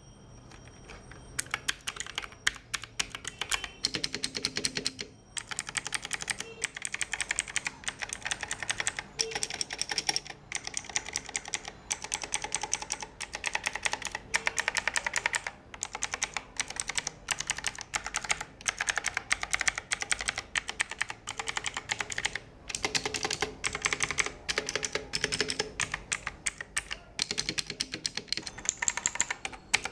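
Fast typing on a Bajeal K100 mechanical keyboard with Outemu Blue switches: a dense run of clicky keystrokes, broken by a few short pauses.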